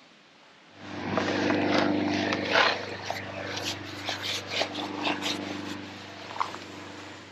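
A steady low engine hum starts about a second in and runs on, with irregular clicks and knocks of fishing tackle being handled as a fish is brought to the landing net.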